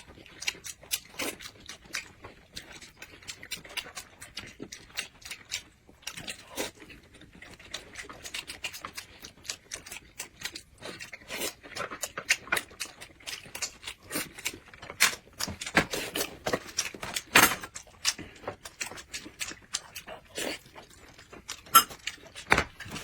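Close-miked eating: chewing and lip-smacking on dumplings, a dense run of wet clicks and smacks, with a few louder smacks later on.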